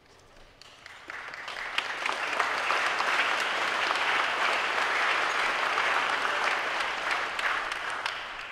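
Audience applauding: the clapping builds up over the first second or two, holds steady, and dies away near the end.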